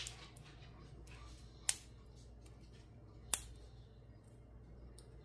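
Single-pin picking an Ace 50mm laminated padlock: sharp metallic clicks from the pick and pins, three loud ones about every second and a half with fainter ticks between.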